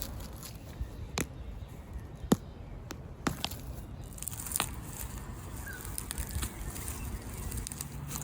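Rustling of dry leaves, sticks and soil, with a few sharp snaps and knocks, as ginger rhizomes are dug out of a mulched garden bed.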